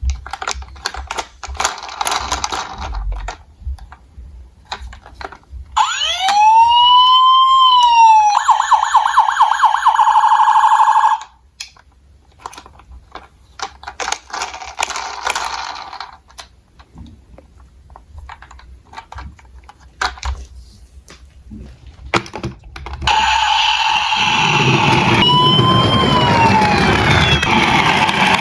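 Electronic police-style siren sounds. One wail rises and falls, then breaks into a fast pulsing yelp. Near the end a second siren wails over a low rumble, and in between come light clicks and clatters.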